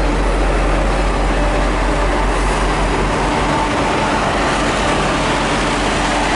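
V/Line passenger carriages rolling along the station tracks: a steady, even rumble of wheels on rail with a faint hum over it.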